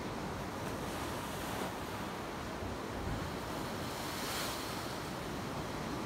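Sea waves washing and breaking in a steady surf, with a brighter wash swelling about four seconds in. Wind buffets the microphone with a low rumble.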